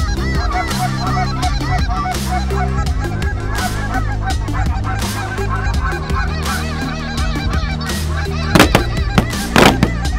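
A flock of Canada geese honking, many calls overlapping without a break. Near the end come two loud sharp shotgun reports about a second apart.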